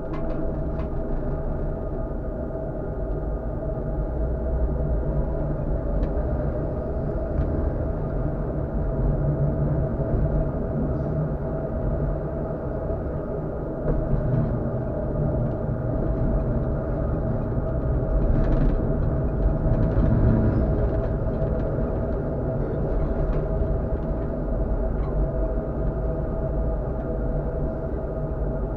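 Tatra KT4D tram running along the track, heard from the driver's cab: a steady low rumble of wheels on rails with a constant whine over it and a few faint clicks.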